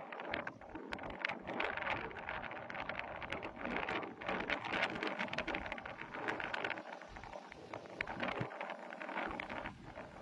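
Lions feeding on a carcass: a dense, crackling run of wet tearing and chewing sounds.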